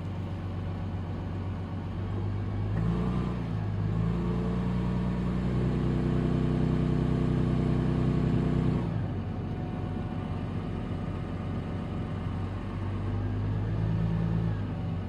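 Toyota Tundra pickup driving, its engine note rising about three seconds in, holding steady, easing off about nine seconds in, then picking up again near the end.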